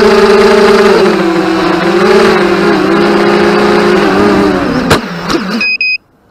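FPV racing drones' motors and propellers whining loudly, the pitch wavering up and down as the throttle changes. About five seconds in there is a sharp crack, then two short beeps, and the sound cuts off suddenly.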